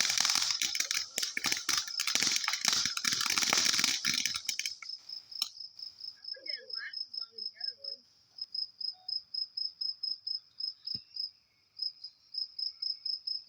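Dense crackling of a consumer firework, which stops about five seconds in. A cricket chirps in a high, fast, even rhythm throughout and is left alone after the crackling ends.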